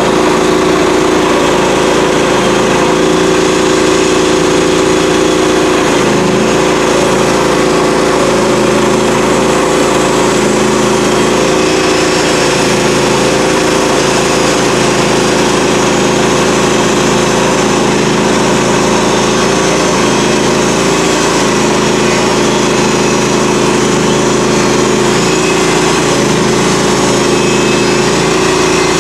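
Norwood HD38 portable band sawmill running steadily under load as its band blade cuts lengthwise through a walnut log: a loud, even engine note with the hiss of the cut.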